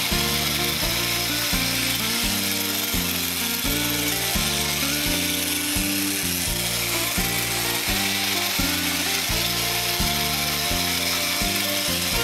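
Background music mixed with the steady whir of a Masudaya tin-plate toy train's electric motor and its wheels running on plastic track.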